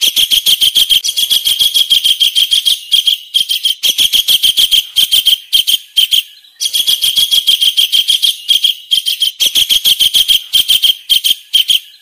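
Kingfisher call: a fast run of sharp, high repeated notes, about nine a second, in two long bursts broken by a short pause just after six seconds.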